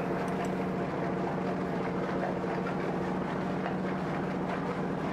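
Inboard engine of a vintage wooden open launch idling steadily: an even low hum with a fast, regular pulse.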